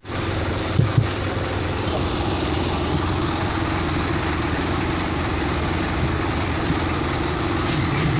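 Steady mechanical running noise with a low hum, with two short knocks about a second in.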